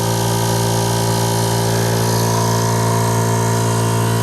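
Small 25-litre air compressor running steadily with an even hum, heard with its soundproofing box open.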